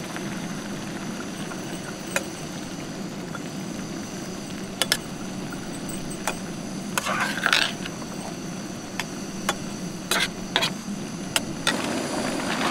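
Metal spatula stirring beans and tomato masala in a steel frying pan: scattered sharp taps and clinks on the pan, with a longer scrape about seven seconds in, over a steady low hum.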